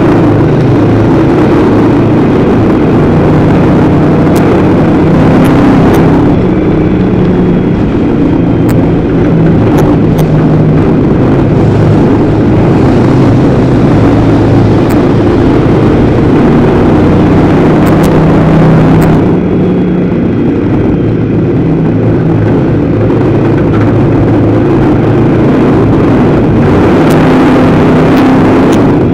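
Dirt-track race car's engine running hard at race pace, heard from inside the cockpit, loud and continuous. Its note shifts and the noise grows harsher and brighter at times as the car goes around the oval, with a few sharp clicks over it.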